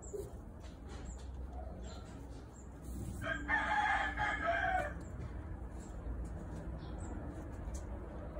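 A rooster crowing once, about three seconds in, lasting nearly two seconds.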